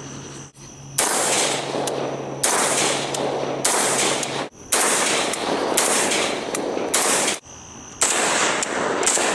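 Rifle shots from a 5.45x39 rifle firing 7N6 ammunition, at roughly one a second, each leaving a long trailing echo. The strings are broken by a few abrupt cuts.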